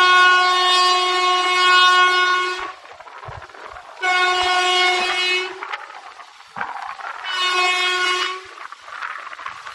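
Indian Railways WAP-4 electric locomotive's horn sounding three blasts: a long one of over two seconds, then two shorter ones. The train's quieter running noise is heard between the blasts.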